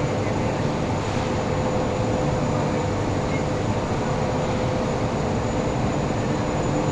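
Workshop machinery running steadily, a continuous mechanical rumble with a constant hum.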